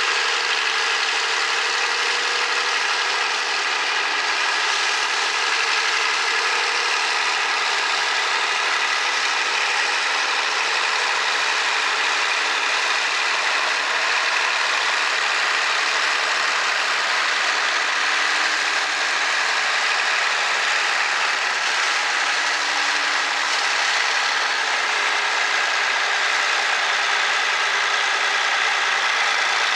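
John Deere 3050 tractor's diesel engine running steadily under load while its rear-mounted hedge cutter works, a constant mechanical noise.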